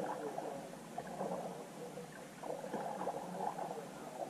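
Water gurgling and lapping against a plastic sit-on-top kayak's hull, with soft, irregular splashes from a double-bladed paddle dipping into the creek.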